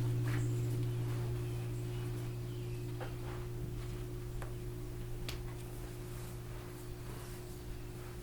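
A sound-bath instrument's lingering tone dying away slowly: a low steady hum with a fainter higher overtone above it. A few faint clicks are heard about three, four and a half, and five seconds in.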